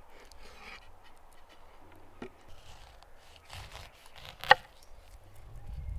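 Light scraping and handling sounds, with one sharp, ringing clink of hard objects about four and a half seconds in.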